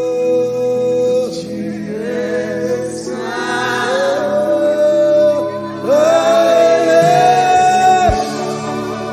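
Gospel worship song: a singer holds long notes over sustained backing chords, climbing to a higher held note about six seconds in.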